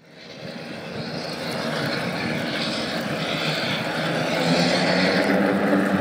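Turbo Otter floatplane's turboprop engine and propeller running, with a high whine over a steady drone, growing steadily louder.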